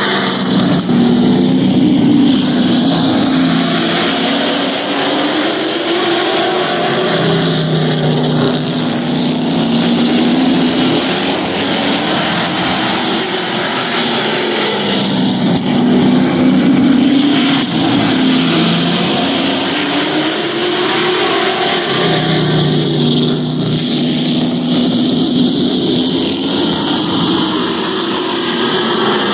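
Pack of Pro Truck race trucks running laps of a short oval, their engines rising and falling in pitch in waves about every eight seconds as the field comes around and passes.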